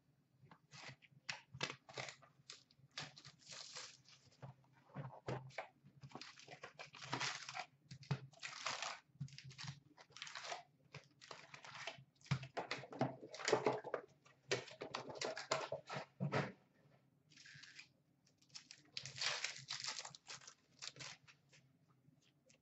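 Plastic shrink wrap crinkling and a cardboard tear strip ripping as a sealed trading-card hobby box is opened and its foil packs are handled. Faint, irregular rustles and rips with short pauses.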